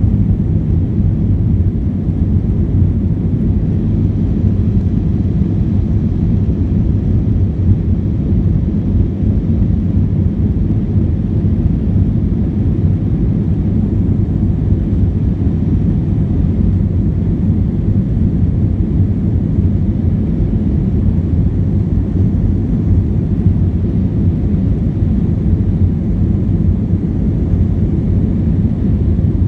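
Jet airliner cabin noise in the climb after takeoff: a steady low rumble of the engines and rushing air, heard from inside the passenger cabin.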